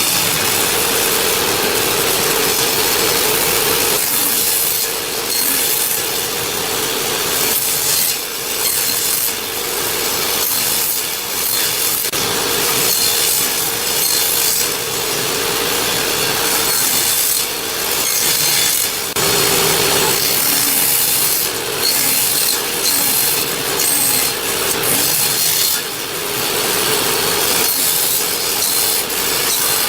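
Electric power tool working wood: a steady motor tone under a continuous rasping, scraping noise, with small dips as the tool is moved along the work.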